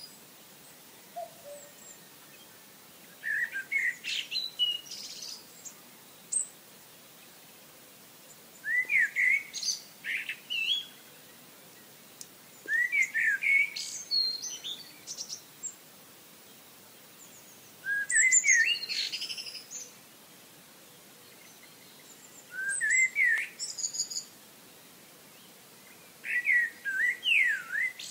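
Birdsong: six short song phrases, each one to two seconds long, made of quick rising and falling notes, with quiet gaps of a few seconds between them over a faint steady hiss.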